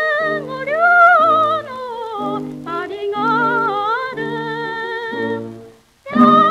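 A c.1930 Japanese shinsaku kouta song playing from a 78 rpm record: a woman's voice sings with vibrato over an accompaniment of repeated short chords. The music breaks off for a moment near the end and then comes back in.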